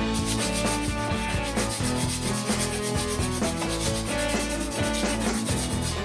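A sanding sponge rubbed by hand along a wooden axe handle, in rapid, even back-and-forth strokes.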